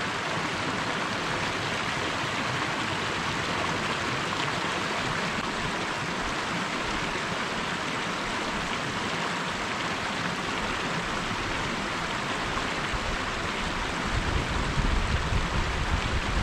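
Small mountain headwater stream running over rocks and a little cascade into a pool: a steady rush of water. A low rumble comes in near the end.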